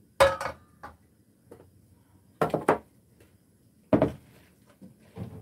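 Sharp knocks and clatters of cookware: two near the start, the first with a short ringing tone, two more about two and a half seconds in, and a loud one around four seconds in.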